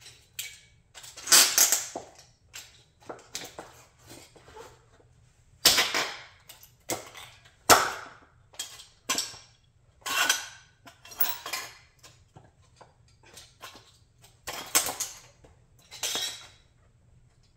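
Broken pieces of a Chrysler 300B model car cracking, crunching and clattering under high-heeled shoes, with heel strikes on a concrete floor. A string of irregular sharp snaps, a few much louder than the rest.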